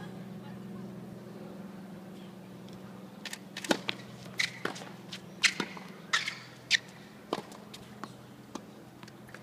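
Tennis ball struck by rackets and bouncing on a hard court: a serve and the exchange that follows, heard as a run of sharp pops about half a second apart for some four seconds, starting about three seconds in. A steady low hum lies under it.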